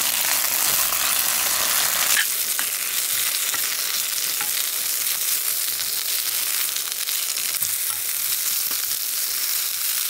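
Bok choy sizzling in hot oil in a wok over high heat as it is stir-fried and turned with a spatula: a steady frying hiss with faint scrapes. About two seconds in, the lower part of the sound drops away and a lighter sizzle carries on.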